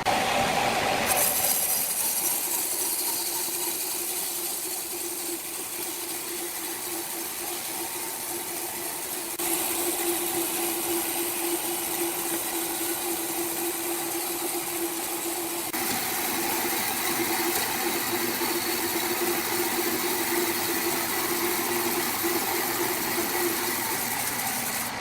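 Motor-driven saw running steadily with a constant hum and hiss, the sound shifting abruptly a few times.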